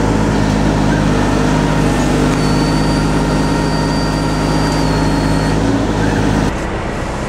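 Offshore powerboat's engines idling with a steady, loud, low rumble. A thin high whine sounds over it for about three seconds in the middle. The rumble drops away near the end.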